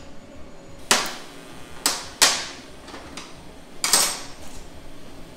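Four sharp metal clanks, each ringing briefly: one about a second in, two in quick succession around two seconds, and one near four seconds.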